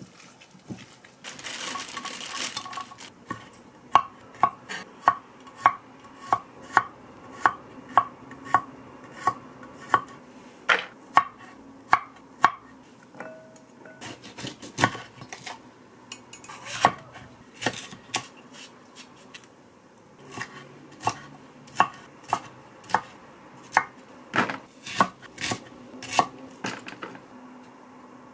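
Kitchen knife chopping vegetables, including a red bell pepper, on a wooden cutting board. Each stroke is a sharp knock on the board, coming steadily at about two a second with a couple of short pauses. A brief rustling noise comes just before the chopping starts.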